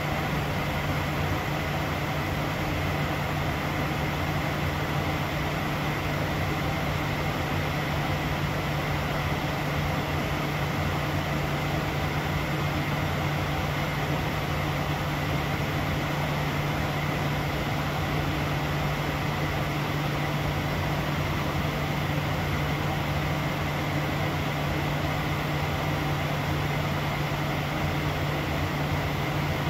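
Steady cockpit noise of a jet airliner cruising at about 40,000 feet: an even rush of air with a low hum and a faint high whine, unchanging throughout.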